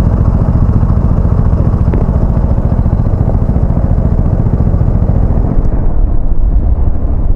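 Motorcycle engine running, heard close up through a bike-mounted camera as a loud, steady low rumble.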